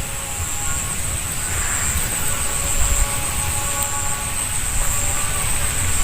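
Unidentified distant hum from high in the sky: faint steady tones under gusty wind buffeting the phone microphone, which is the loudest sound. The source of the humming is not known.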